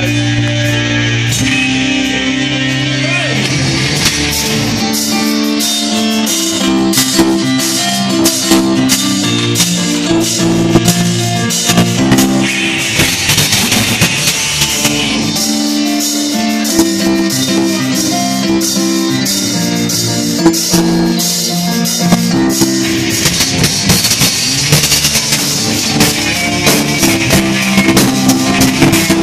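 Live rock band playing: electric guitar over a bass line, with the drum kit coming in about four seconds in.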